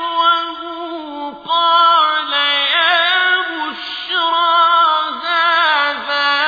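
A single voice reciting the Quran in slow, melodic chant, holding long ornamented notes with brief pauses between phrases.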